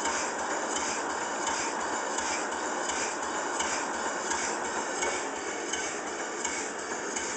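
Small single-cylinder vertical bottle-frame stationary steam engine (3-inch bore, 4-inch stroke) running, with regular exhaust puffs about twice a second over a steady hiss.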